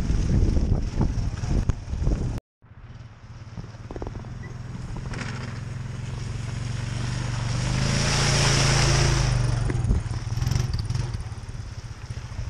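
Honda ATV engine running close by. After a brief cut, the engine is heard again, building in loudness and pitch to a peak about eight seconds in, then easing off as the quad moves away.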